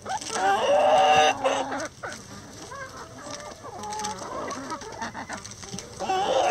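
Backyard chickens clucking. A loud drawn-out call begins about a quarter second in and lasts over a second, softer clucks follow, and another loud call starts near the end.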